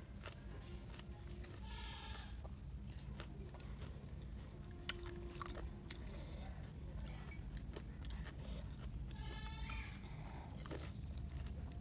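Pani puri being eaten: the crisp puri shells crunch and crackle in short clicks as they are bitten and chewed. Twice a short, wavering animal call sounds in the background over a steady low hum.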